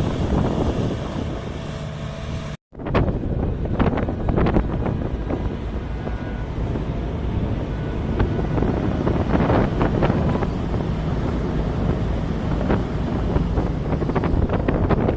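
Farm machinery engine running steadily with heavy wind noise on the microphone and some intermittent rattling. It drops out abruptly for a moment about two and a half seconds in, then carries on.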